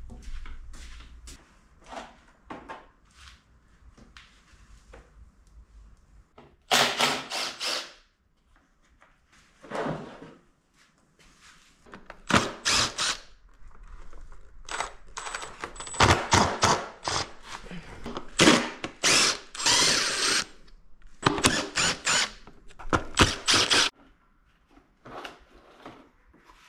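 Cordless power driver running in repeated short bursts as it spins bolts out of a dirt bike's rear fender and tail section, with one longer run of about five seconds in the middle. Quieter clicks and knocks of handled parts come first.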